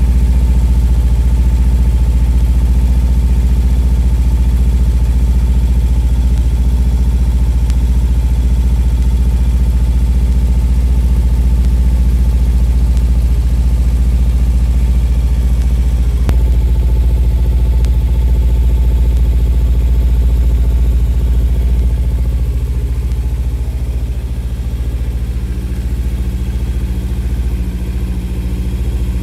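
Kawasaki Ninja 300 SE's parallel-twin engine idling steadily, run to circulate freshly added fuel stabilizer through the fuel system.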